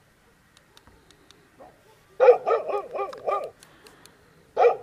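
Dog barking loudly in quick runs: about five barks a little after two seconds in, then another run starting near the end.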